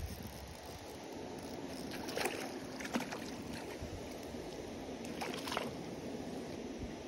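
Water splashing and sloshing at a pond's surface, with three short splashes standing out over a steady background hiss.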